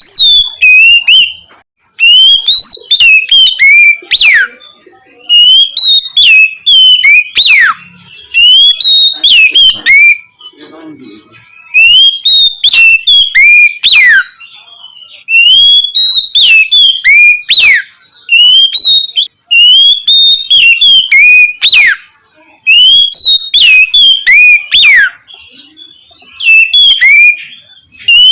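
Oriental magpie-robin (kacer) singing its loud, clear 'ngeplong' song: about nine phrases of rising and falling whistled notes, some with long downward slurs, each about two seconds long and separated by short pauses.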